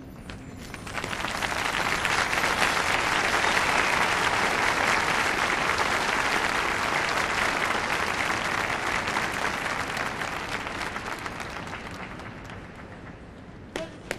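Large stadium crowd applauding as the band's piece ends, swelling about a second in and slowly dying away over the last few seconds. A single sharp knock near the end.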